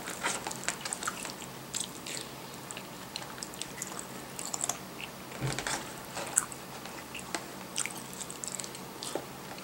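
A person chewing a mouthful of curry and breaded pork cutlet, with scattered small wet mouth clicks and a few louder bites.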